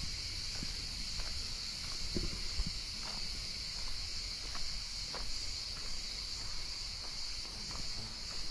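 A steady, unbroken chorus of cicadas buzzing, with low wind rumble on the microphone and a few faint taps.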